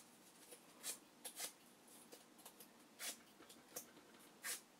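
About six faint, short scratchy strokes, spread out, of an abrasive tool scuffing glossy file-folder paper strips to take the gloss off so glue will hold.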